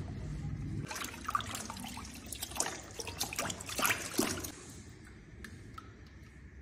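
A paddle mixer in a bucket runs and stops just under a second in; then a hand squelches and sloshes in thick wet grey mix, giving irregular wet smacks and drips that fade near the end.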